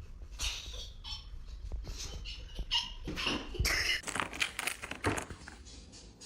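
A pet scuffling and rustling: irregular scratchy noises and small clicks, busiest in the middle and dying down near the end.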